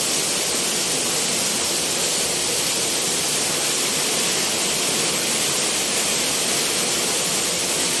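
A waterfall about 20 metres high pouring into its pool: a steady, unbroken hissing rush of falling water.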